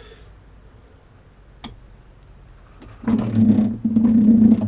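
A low workshop hum with one sharp click, then from about three seconds in an electric motor runs loud and steady with a rasping cutting noise, dipping briefly once, as a digit is cut into a lathe cross-feed dial.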